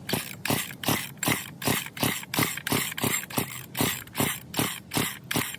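Chainsaw's recoil starter yanked in quick short pulls, about two and a half a second, the engine turning over without catching.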